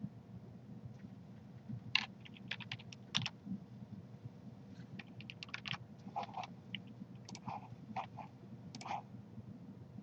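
Irregular keystrokes on a computer keyboard, with mouse clicks, some in quick runs, over a low steady hum.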